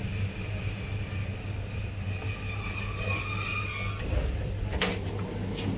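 V/Line passenger train running with a steady low hum. Faint, thin wheel squeal comes in through the middle, and two sharp clicks follow near the end.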